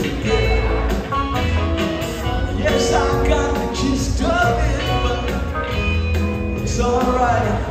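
A live band playing: drums and upright bass under electric guitar, piano and pedal steel guitar, with a string section.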